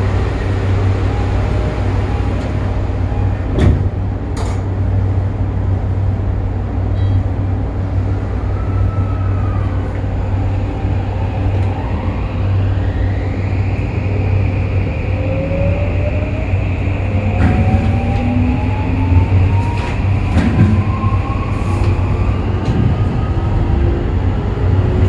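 Inside a Toei 5500 series subway car pulling away from a station: after a steady low hum and a couple of knocks, the Mitsubishi full-SiC VVVF inverter starts about eleven seconds in. Its whine rises and holds as a steady high tone, while the traction motors' tones climb in pitch as the train accelerates.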